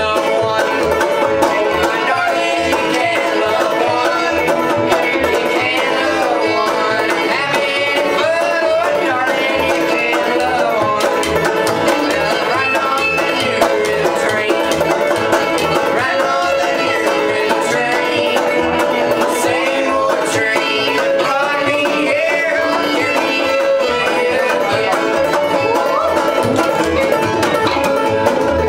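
Bluegrass string band playing: fiddle, banjo and upright bass together, the fiddle's wavering melody over banjo picking and a regular bass thump.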